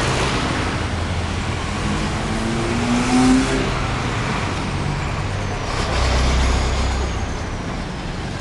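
Street traffic from passing cars and other motor vehicles, a steady wash of road noise. About three seconds in, an engine rises in pitch, and around six seconds a louder, low-pitched vehicle goes by.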